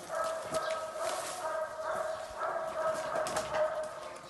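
A dog whining in a steady, high-pitched whine, broken into stretches of about a second.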